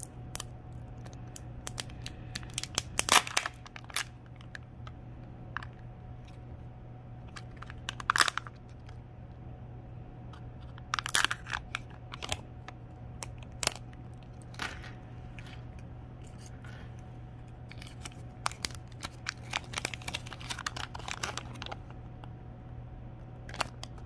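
A Kinder Joy plastic egg and its foil-lidded toy capsule opened by hand: scattered crinkling, tearing and sharp plastic clicks, loudest in short bursts about three and eight seconds in.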